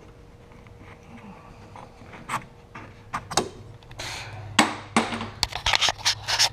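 Hand-work noises from plumbing repair: a run of knocks, clacks and short scrapes of tools and parts being handled, getting busier and louder about four seconds in, over a low steady hum.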